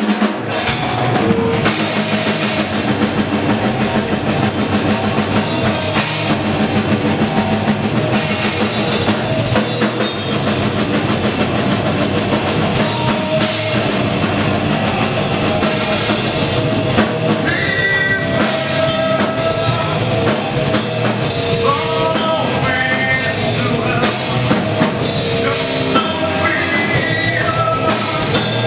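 Rock band playing live and loud, with a full drum kit and electric guitar, heavy and dense throughout. Higher melodic lines rise over the band from a little past halfway.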